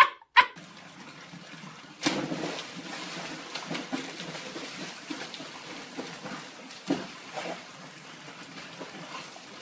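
Two brief sharp sounds at the very start, then a dog splashing into a swimming pool about two seconds in, followed by continuous water splashing and trickling.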